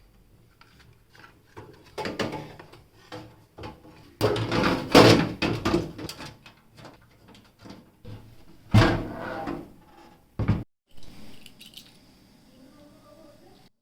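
Irregular clicks, knocks and scraping of hard objects being handled, loudest about four to six seconds in, with another sharp knock about nine seconds in.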